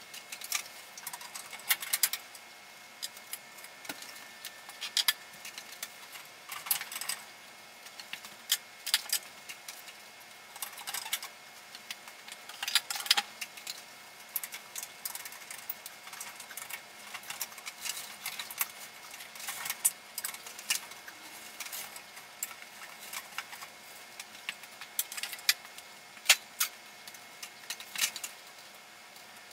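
Hands working inside an opened fluorescent ceiling fixture, moving its wiring and sheet-metal parts: irregular sharp clicks and metal rattles, with a few louder clacks.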